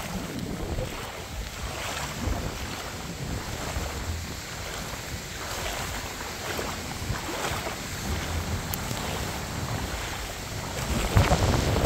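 Gusty hurricane wind buffeting the microphone, a rumbling rush that grows louder near the end.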